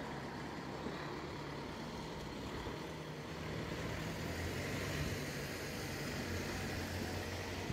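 Low, steady engine hum, swelling slightly from about four to seven seconds in.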